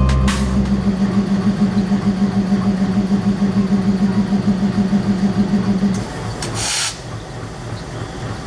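WDM-3A Alco diesel locomotive engine running with a steady, rapidly pulsing throb. The throb drops away suddenly about six seconds in, followed by a brief hiss and a lower rumble.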